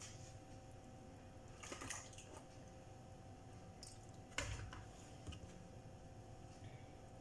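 Plastic food container and lid being handled: a short scraping rustle about two seconds in, then a sharp knock about four and a half seconds in, the loudest sound. A faint steady hum runs underneath.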